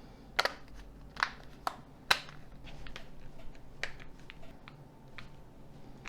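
Small sharp clicks and taps, about six spread irregularly, from the plastic parts of a 2021 Nokia 6310 being handled and fitted back together.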